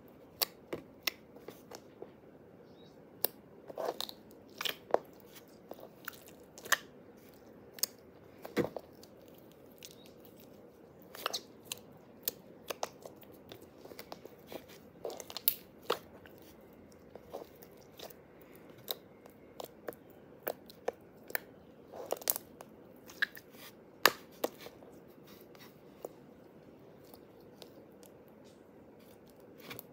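Blue jiggly slime being pressed, poked and squeezed by hand, giving irregular sharp clicking pops, sparser near the end.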